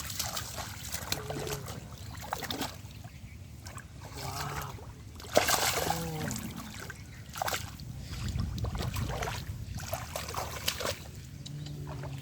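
Shallow water splashing and sloshing in irregular bursts as it is worked by hand while fishing, with a few short, low calls.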